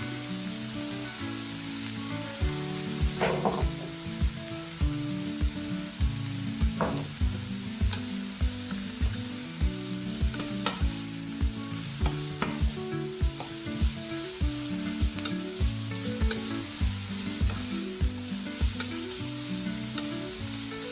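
Food sizzling and being stirred in hot oil in a frying pan. Background music with a steady beat runs underneath, its beat starting about two seconds in.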